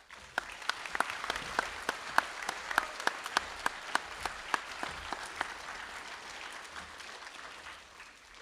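Audience applauding in a school assembly, a dense patter of claps with a few loud single claps close by, tapering off over the last few seconds.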